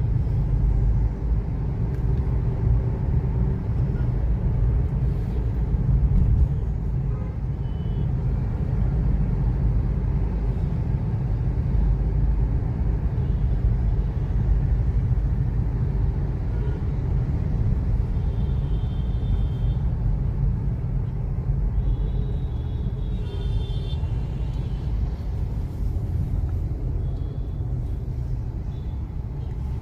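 Inside a Maruti Ignis driving in city traffic: a steady low rumble of its 1.2-litre four-cylinder petrol engine and tyre noise. A few brief high beeps come a little past the middle.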